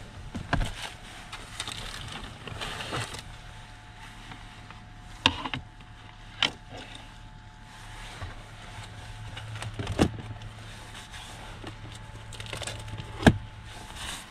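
Things being handled at a small wooden camping table: rustling of packaging, then four sharp knocks and clicks of objects being set down, the last the loudest, over a steady low hum.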